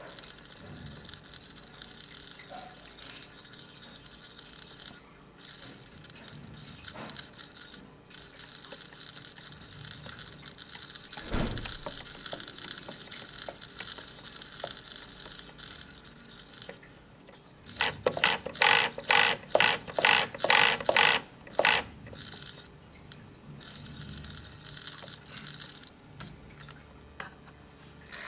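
Micro RC car's tiny drive motor and steering servo, run through a servo board used as a proportional speed controller, whirring and clicking through their small gears in short bursts. There is a single knock about a third of the way in, and a little past halfway comes a run of about a dozen loud, quick pulses, about three a second.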